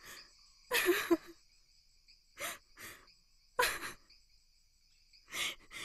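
Crickets chirping steadily, with about six short breathy human sounds scattered over the top, the loudest about a second in.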